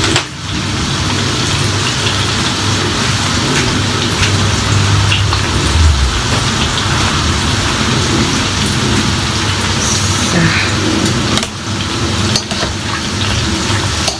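Bacon sizzling and spitting in a frying pan, a loud, steady hiss with small crackles.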